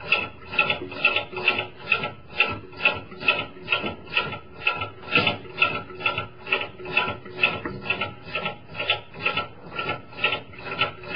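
Wrench being worked in repeated short strokes to screw up the adjuster bolt of a Roadmaster Active Suspension tension spring, a rhythmic rasping about twice a second. The bolt is being run up to preload the helper spring.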